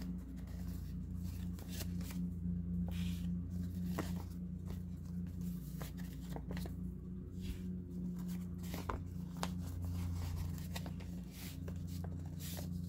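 A sheet of paper being handled and folded: scattered rustling and crinkling with light taps, over a steady low hum.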